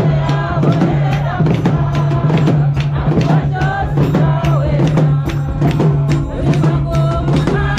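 Church hymn sung by a group of voices over a fast beat of drums and tambourines, with a steady low droning note underneath.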